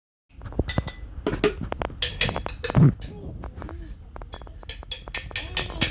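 Children banging on pots, pans and kitchen utensils as makeshift drums: irregular clanks and clinks, some strikes ringing briefly, with a heavier thud about three seconds in.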